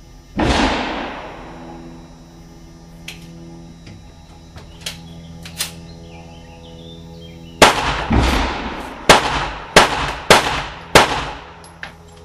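9mm Parabellum pistol shots with echoing tails: one shot about half a second in, then after a pause a rapid string of six shots about 0.6 s apart, fired under time pressure. A few faint clicks come in the pause between.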